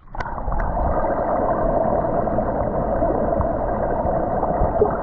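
Muffled rushing and gurgling of water heard through a submerged camera microphone, dull with the treble cut off. It begins with a splash as the camera goes under.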